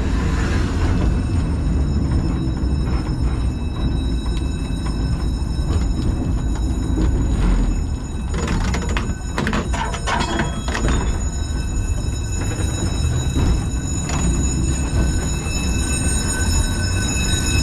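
Two-axle museum tram running on its rails, heard from the driver's cab: a steady low rumble of wheels and running gear. About eight to eleven seconds in comes a cluster of clicks and knocks.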